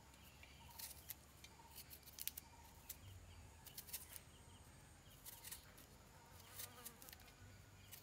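Faint, irregular scraping clicks of a small knife blade stripping the green skin off a moringa (drumstick) pod.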